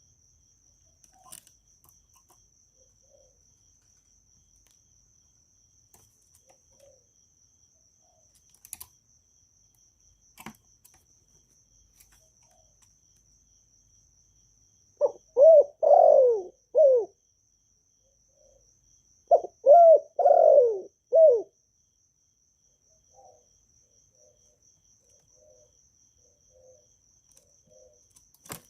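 Spotted dove cooing: two phrases of several notes each, about four seconds apart, near the middle.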